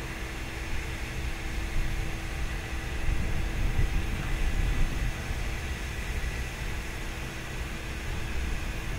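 Steam locomotive CFL 5519 standing and simmering: a steady hiss of escaping steam with a steady hum beneath it. A low rumble swells a few seconds in and then eases.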